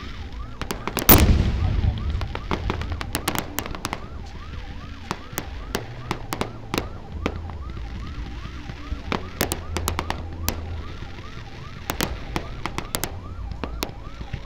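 Aerial fireworks going off: one heavy boom about a second in, then a run of sharp cracks and pops over a low rumble. A siren-like whooping tone repeats about twice a second underneath throughout.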